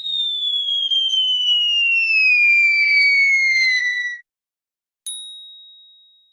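Cartoon falling-whistle sound effect: a single whistle tone that slides steadily down in pitch for about four seconds and then cuts off. About a second later comes a single bright ding that rings and fades away.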